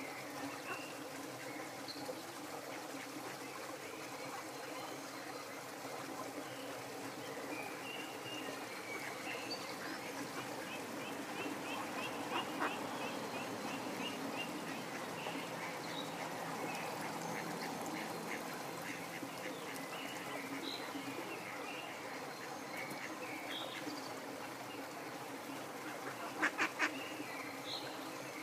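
Waterfowl calling in short, scattered notes over a steady rush of flowing water, with a quick run of sharp clicks near the end.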